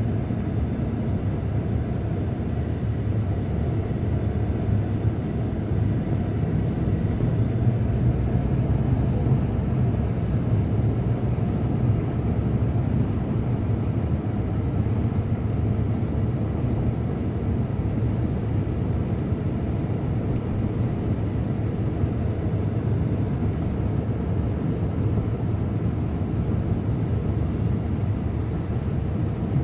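Steady low rumble of a car's tyres and engine on a snow-covered road, heard from inside the cabin.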